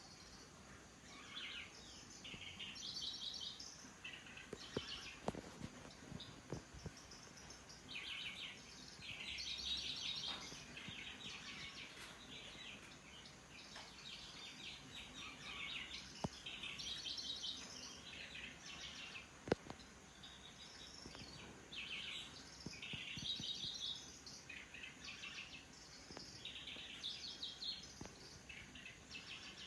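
A kecici belalang (cici lurik) singing: short, fast, buzzy trilled phrases, repeated one after another with brief gaps. A few sharp clicks sound under the song, the strongest about two-thirds of the way through.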